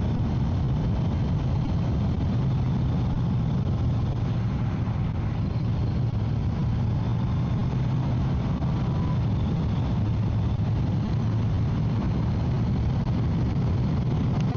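Motorcycle running steadily at highway speed, its low engine hum under a constant rush of wind noise, picked up through a microphone fitted with a furry 'dead cat' windscreen.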